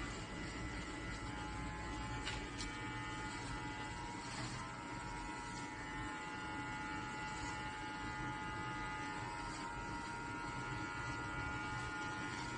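Electric hair clippers running with a steady buzz while shaving a head.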